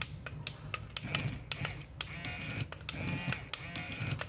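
Small N20 gear motor of a model dump truck's tipper bed running in short bursts, a high whine that comes and goes in the second half, with light clicks of the gears and mechanism.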